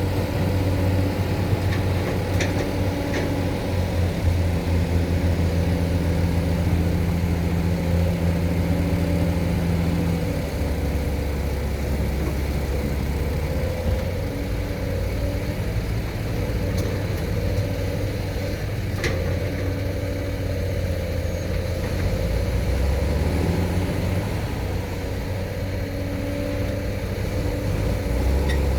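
Excavator's diesel engine running, its note shifting in pitch several times as the engine speed changes, with a few faint sharp clicks.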